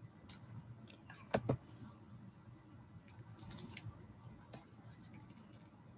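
Typing on a computer keyboard: scattered keystrokes, with a quick run of keys about three and a half seconds in.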